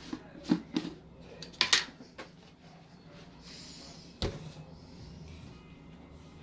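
Knocks and clatter of containers being handled and set down in a refrigerator, a few separate knocks with the loudest cluster about one and a half seconds in and another sharp knock about four seconds in.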